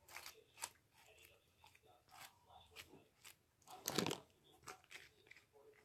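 Homemade slime being squeezed and stretched by hand, giving faint irregular crackles and little pops, with a louder squelching cluster about four seconds in.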